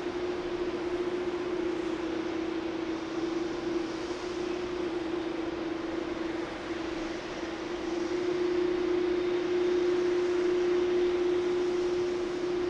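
Boeing 787-9's GEnx-1B turbofan engines idling as the airliner taxis past: a steady hum with one strong held tone over a broad hiss, growing a little louder about eight seconds in.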